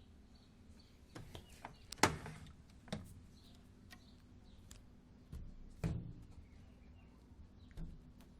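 Samsung WD136 front-load washer-dryer running: a steady low hum with a few irregular knocks and clicks, the loudest about two seconds in.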